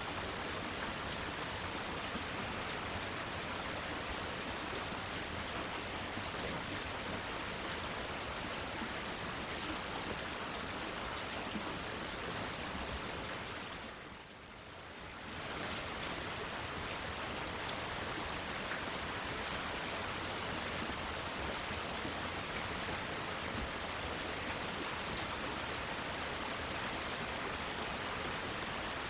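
Steady rain falling, an even hiss of drops. About halfway through it fades down briefly and comes back up to the same level.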